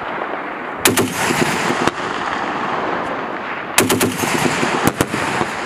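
M2 .50-calibre heavy machine gun firing two short bursts, about a second in and again near the four-second mark, each a rapid string of heavy shots lasting about a second, over a steady background rush.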